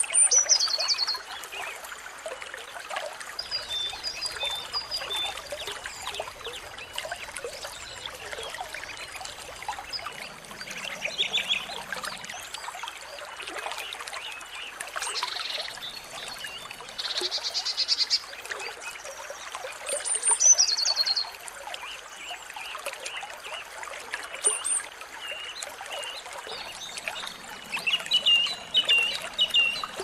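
Small songbirds calling over a steady rush of running water: sharp high whistles sliding downward, quick series of chips and buzzy trills. The loudest call is a downward-sliding whistle about two-thirds of the way through.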